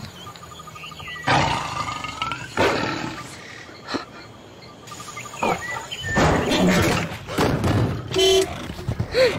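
Lion growls and roars close to the car, with a short toot of a car horn about eight seconds in.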